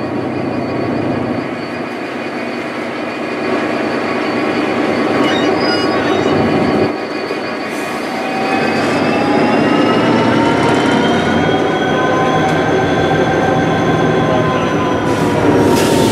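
Irish Rail 071 class diesel locomotive, an EMD two-stroke V12, running while it eases slowly up to its coaches, with a steady low engine note. About halfway through, a whine comes in that rises in pitch and then slowly falls.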